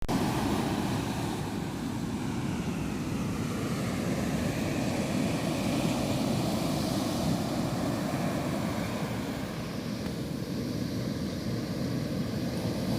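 Ocean waves surging and breaking on the beach, a steady low rumble of surf that swells and eases slightly.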